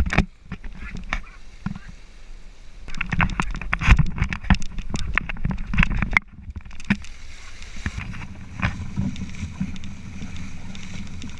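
A sailboat under way, with water splashing and sloshing along the hull. A dense run of knocks and splashes fills the middle few seconds, then it settles to a steadier low rush.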